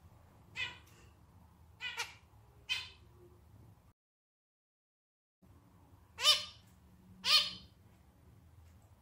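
Male zebra finch giving short, nasal, harmonic notes that sound like a small, slightly out-of-tune clarinet. Three softer notes come in the first three seconds, then a short dead silence, then two louder notes about a second apart.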